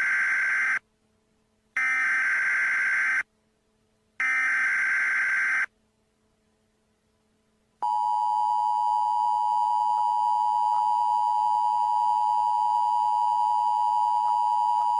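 Emergency Alert System tones. Three bursts of screeching digital SAME header data, each about a second and a half long with short gaps between them. After a pause, the steady two-tone EAS attention signal starts about halfway through and holds, announcing an emergency alert.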